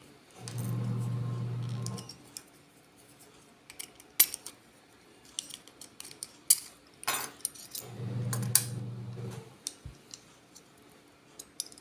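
Small sharp clicks and taps of the plastic parts of a two-pole wall switch being handled and fitted back together. A steady low hum comes twice, each for about a second and a half, once near the start and once about 8 s in.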